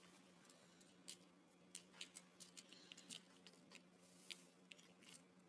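Near silence with faint, scattered sharp clicks of the plastic parts of a Lego Bionicle figure being handled, over a low steady hum.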